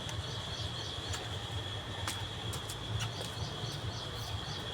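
A steady high insect drone, with a bird's short chirps repeated quickly in two runs, near the start and again in the second half, over a low rumble and a few faint clicks.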